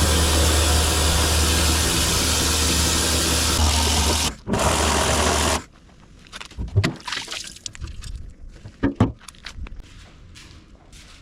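Pressure washer running: its motor hums under the hiss of the water jet spraying the steel fuel tank. It cuts out briefly about four seconds in, runs again for about a second, then stops, leaving scattered knocks and short bursts of spray.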